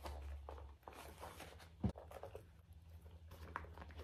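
Faint rustling and scraping as a small wallet is slid into a compact monogram handbag, with one sharp click a little under two seconds in.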